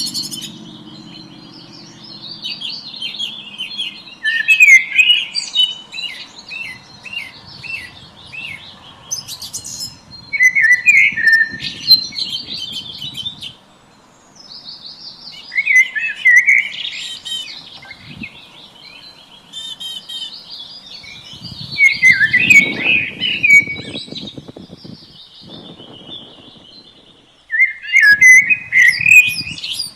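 Several songbirds singing in a morning chorus: repeated bursts of quick, high chirping phrases, with short pauses between songs.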